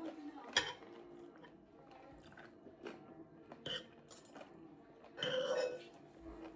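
Someone chewing food at a meal, with a few short, sharp clicks like cutlery on a plate. A louder sound lasting about half a second comes a little past five seconds in.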